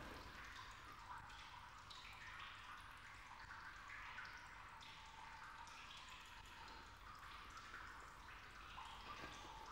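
Faint, irregular dripping of water in a toilet cubicle, over a low hum.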